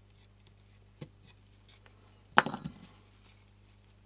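A couple of faint clicks, then one sharp knock with a short clatter about two and a half seconds in: metal tweezers set down on the workbench while the repairer swaps to another pair. A faint steady low hum underneath.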